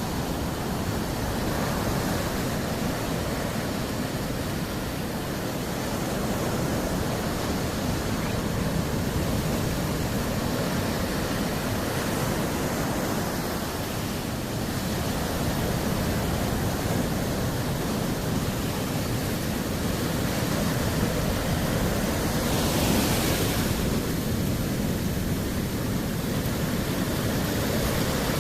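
Sea surf washing continuously, a steady rush of noise, with a brighter hiss about three-quarters of the way through as a wave breaks.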